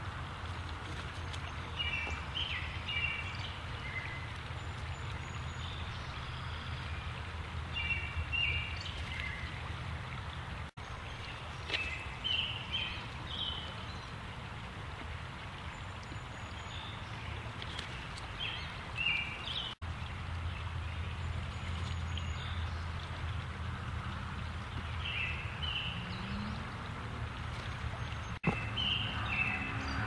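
Steady rush of flowing river water with a low hum under it, and a bird calling in short clusters of high chirps every few seconds.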